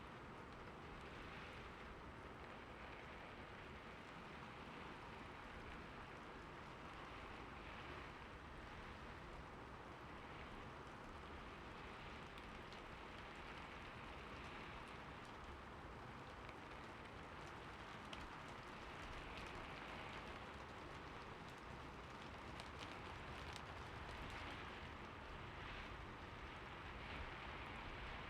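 Heavy rain falling steadily: an even hiss with scattered individual drops ticking through it.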